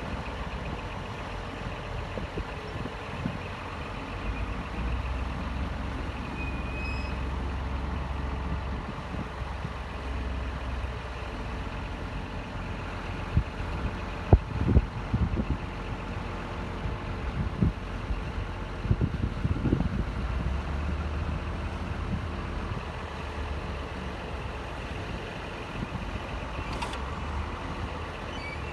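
Scania R420 truck's diesel engine running steadily while its knuckle-boom crane is worked out to full reach, with a few short low thumps around the middle.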